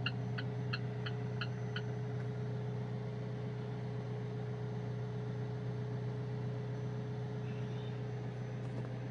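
Alfa Romeo 4C's 1750 turbocharged four-cylinder engine idling steadily, heard from inside the cabin. Over it the hazard-warning flasher ticks about three times a second, then stops about two seconds in.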